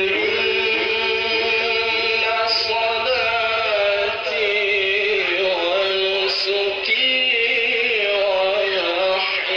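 A male qari reciting the Quran in the melodic tilawah style, holding long notes that waver and turn in pitch.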